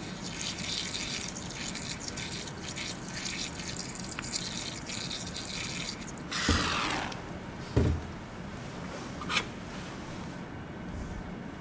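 Plastic lab wash bottle squirting water to rinse a dissected crayfish: a run of small splashes and drips, then a louder, gurgling squirt that falls in pitch about six and a half seconds in. Two light knocks follow a little later.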